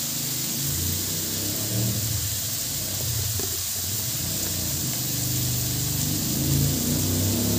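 Engine of a three-wheeled motor vehicle running and growing louder toward the end. Under it, food sizzles steadily in a wok.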